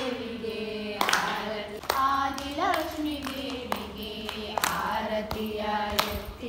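A devotional song sung during the pooja, with sharp hand claps at intervals of about a second or more.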